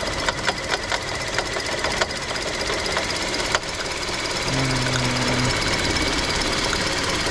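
Toyota Voxy engine running with a loud abnormal noise: sharp ticking and knocking over its steady running, thickest in the first few seconds. The mechanic traces the noise to the alternator.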